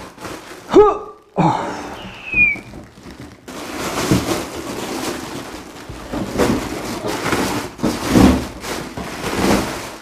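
Clear plastic wrapping crinkling and rustling as it is pulled off an amplifier, with a brief voice sound about a second in.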